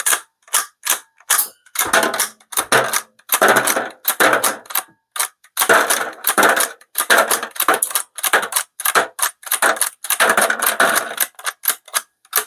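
Rossi Gallery .22 LR pump-action rifle being cycled by hand again and again: the slide racking back and forth in quick metallic clacks and scrapes as the bolt strips, chambers and ejects round after round, with the ejected cartridges clinking into an aluminium foil pan. Every round is feeding cleanly now that the magazine tube follower has been deburred.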